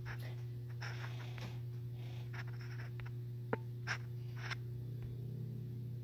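Room tone with a steady low electrical hum, overlaid by scattered light rustles and taps of handling, the sharpest a single click about three and a half seconds in.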